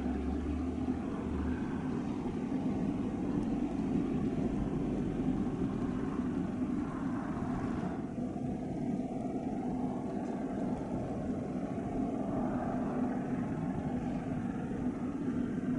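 Large ro-ro car ferry's engines running: a steady low mechanical drone, whose higher part drops away about eight seconds in.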